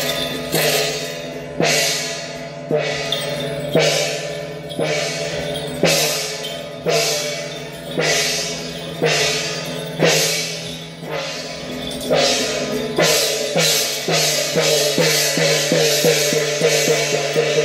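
Temple-fair percussion of crashing cymbals and drum, struck about once a second, each crash ringing on. About twelve seconds in, the beat quickens to roughly two strikes a second.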